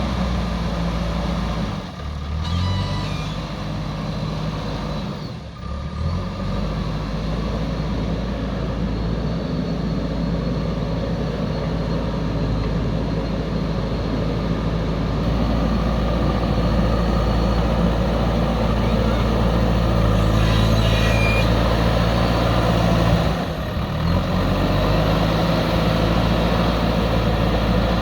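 Heavy earthmoving machinery engine running steadily, with its pitch shifting a few times.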